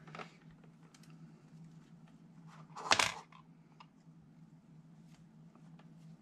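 Handling noise from wires and a USB-C cable being picked up and moved: scattered small clicks and one short, louder rustle about three seconds in. A steady low hum runs underneath.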